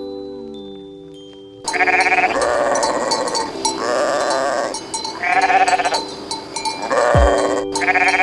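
Sheep bleating repeatedly with a quavering, wavering voice, starting about two seconds in after soft chime-like music notes. Steady background music continues under the bleats, with a deep falling boom near the end.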